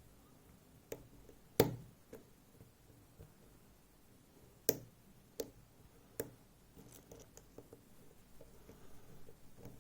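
Sharp clicks of the pin tumblers (barrels) setting as a hook pick lifts them in a FAB Variant lock, five distinct clicks with one loud one early on, then fainter small ticks of the pick near the end.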